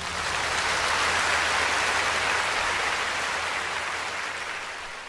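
Large concert audience applauding, a dense steady clapping that fades out near the end.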